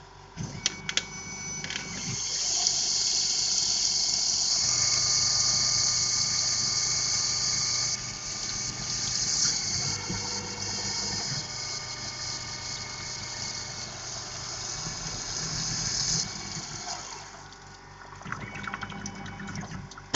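A steady hissing spray starts about two seconds in and cuts off about sixteen seconds in. A few clicks come before it, and a low hum runs underneath.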